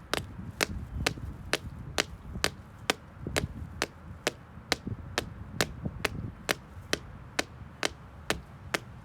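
Hard sole of a black slingback shoe tapping on concrete in a steady rhythm, sharp clicks about two a second.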